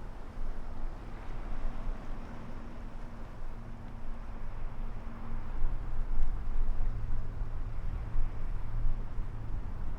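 Sea waves washing on the shore with wind buffeting the microphone: a continuous low rumble that swells a little in the second half, with a faint steady low hum underneath.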